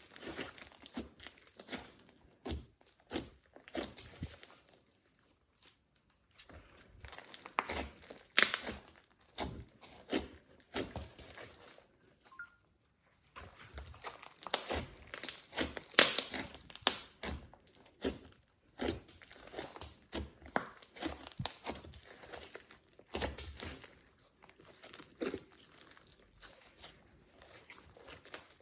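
Glossy slime being handled, squeezed and stretched, making irregular sticky crackles and pops, with a brief pause about halfway through.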